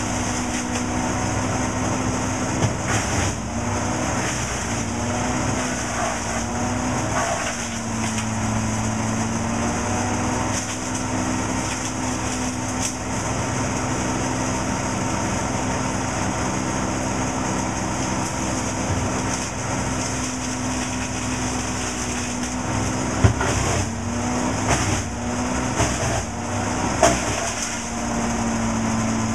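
Timberwolf S426 Turbo Shredder's diesel engine running steadily at working speed, its pitch dipping briefly several times as it takes load. A few sharp cracks and knocks, mostly near the end, as brushwood goes through the shredder.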